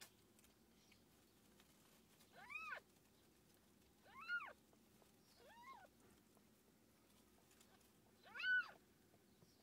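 Cat mewing four times, each a short high call that rises and falls in pitch, the last one the loudest.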